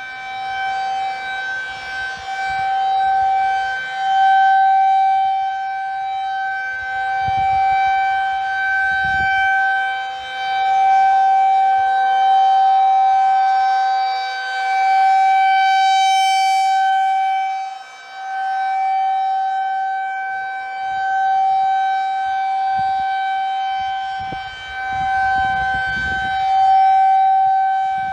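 Federal Signal 2001 rotating tornado siren sounding a steady, unchanging tone. It grows louder and fades about every five or six seconds as the turning horn sweeps toward and away from the listener.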